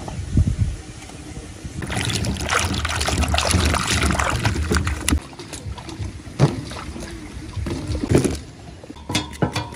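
Hands sloshing and splashing water in a stainless-steel bowl while washing chicken pieces and peeled bananas, busiest from about two to five seconds in, then quieter swishing and drips.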